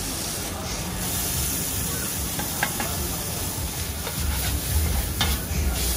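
Shrimp pad thai sizzling on a street vendor's large flat steel pan as it is stir-fried, with metal spatulas scraping and clacking against the pan now and then.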